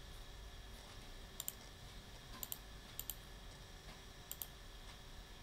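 Computer mouse button clicked four times, each click a quick press-and-release double tick, over a faint steady hum.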